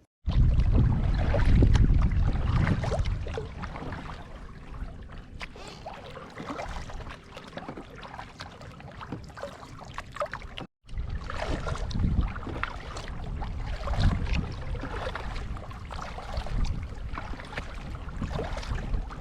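Kayak paddle strokes splashing, with water trickling and dripping off the blades, over a low rumble that is heaviest in the first few seconds. The sound cuts out for a moment about halfway through.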